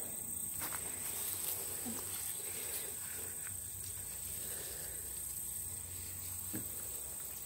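Steady, unbroken high-pitched chirring of an insect chorus, crickets, with a few faint rustles and clicks of plants being handled.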